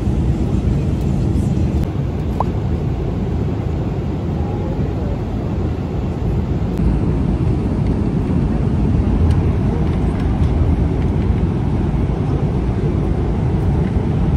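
Steady low rumble of jet airliner cabin noise, engines and airflow heard from a passenger seat.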